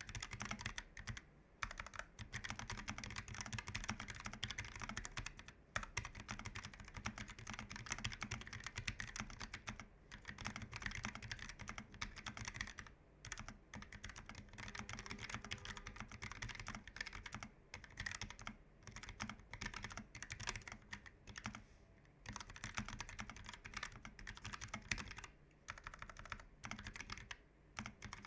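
Keychron K1 v4 tenkeyless keyboard with Gateron low-profile red linear switches being typed on, a fast, continuous run of keystrokes broken by a few brief pauses.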